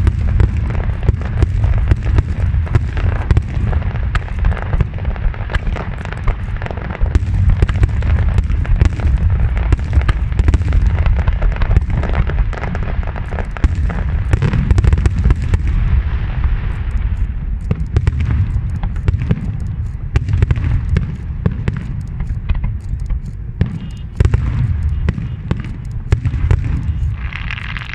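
Fireworks display heard through a phone microphone: a dense barrage of booming shell bursts and crackling, the deep booms clipping the recording. The barrage eases off a little after about two thirds of the way through, with scattered bangs and crackle continuing.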